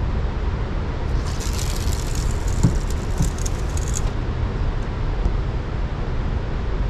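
Steady low rumble of water running through an open dam spillway, mixed with wind on the microphone. A light high crackle comes in about a second in and stops a few seconds later.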